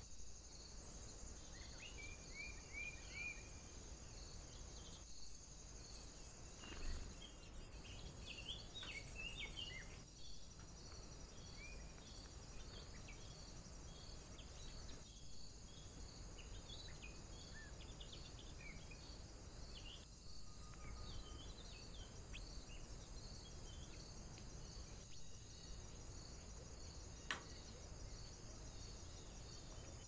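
Faint, steady insect chirring, a high continuous buzz with a regular pulse about twice a second, under scattered short chirps and calls of small songbirds. A single sharp click sounds near the end.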